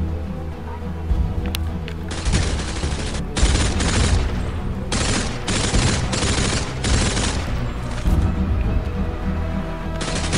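Automatic gunfire sound effects in several long bursts with short gaps, starting about two seconds in, over background music.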